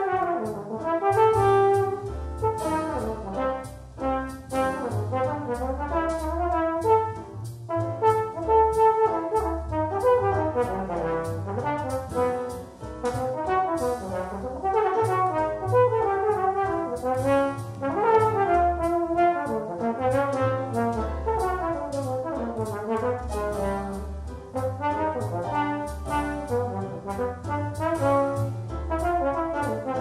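Tenor trombone playing a fast, continuously moving jazz etude line in C major, over a low accompaniment that changes every few seconds and a steady ticking beat.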